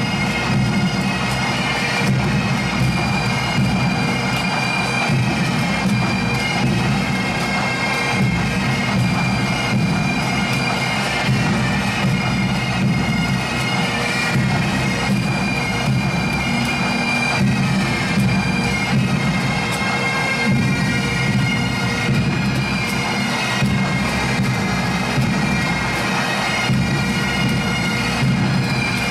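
Massed pipes and drums: many Great Highland bagpipes playing together over their steady drones, with snare and bass drums keeping time underneath. The sound is loud and even throughout.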